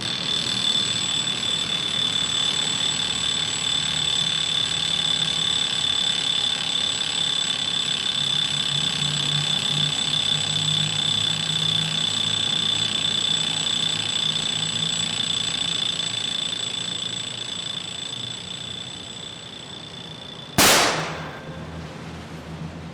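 Electronic alarm sounding one continuous high-pitched tone, which fades over its last few seconds and stops about twenty seconds in. Just after, a single sharp bang, the loudest sound here.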